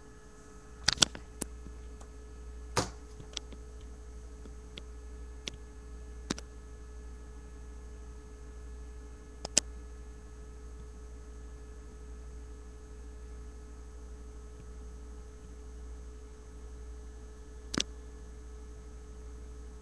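Steady electrical hum with a few faint steady tones over it, broken by half a dozen scattered sharp clicks, the loudest about a second in.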